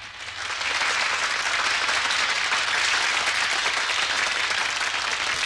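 A large crowd applauding, swelling up over the first second and then holding steady.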